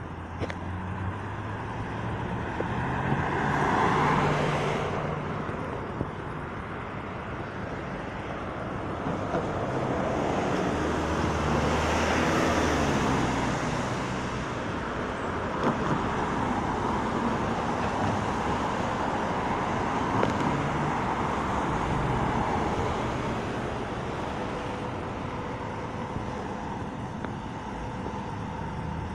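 Night-time street traffic: passing cars swell and fade over a steady low engine hum, with one vehicle going by about four seconds in and a louder one about twelve seconds in.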